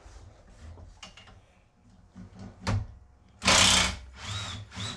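A power drill backing out a bolt that holds a wood chipper's knife, starting about three and a half seconds in with a loud burst and then short trigger squeezes, its motor whine rising and falling with each. Before that, a sharp click and light handling noises.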